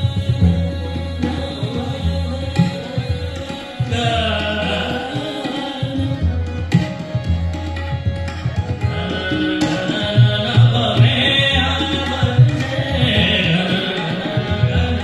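Tabla playing a steady accompaniment with deep bass strokes from the bayan, under a male singer's voice that is clearest from about four seconds in.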